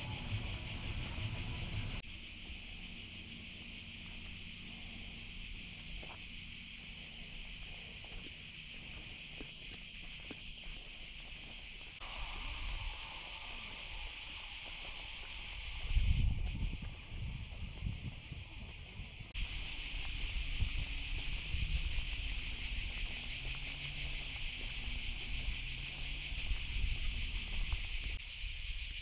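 Chorus of cicadas in a Mediterranean pine forest: a steady, high, shrill hiss that keeps going throughout, its level jumping up and down at a few cuts. Under it is a low rumble, with a brief louder low thump or gust about sixteen seconds in.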